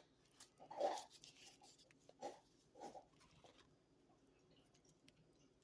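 Faint handling noises: soft rubbing scrapes and light clicks, the loudest about a second in, otherwise near silence.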